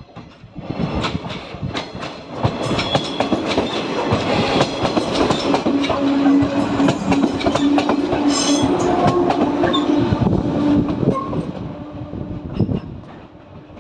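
Electric train passing close by, its wheels clattering over rail joints, with a steady low tone in the loudest middle stretch. The sound builds up over the first couple of seconds and fades away near the end.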